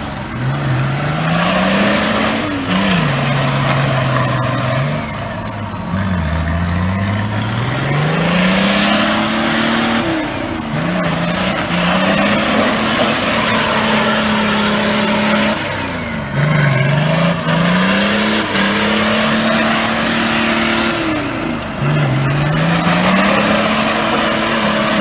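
Nissan GU Patrol's RD28 turbo-diesel straight-six, under load in a mud hole, revving up repeatedly: each time the pitch climbs, holds high for a few seconds, then drops back before the next push.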